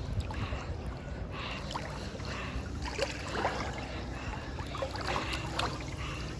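Water splashing and sloshing with a swimmer's strokes, about one splash a second, over a steady low rumble.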